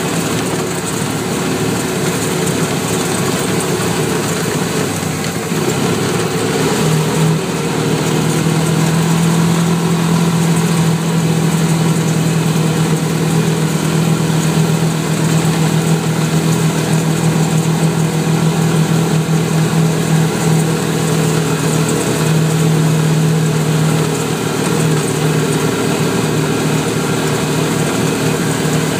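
Vehicle engine running as it drives, its note climbing about seven seconds in and then holding steady, easing slightly near the end.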